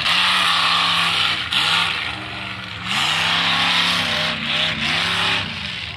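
Modified tuff truck's engine revving up and dropping back again and again as it runs the dirt course, under a steady rushing noise.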